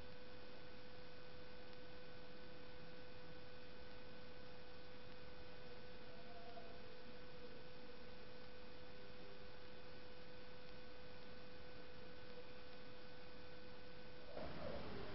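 A steady tone held at one pitch over a bed of hiss, cutting off sharply near the end, where the hiss grows louder. Faint pitch glides sound through it.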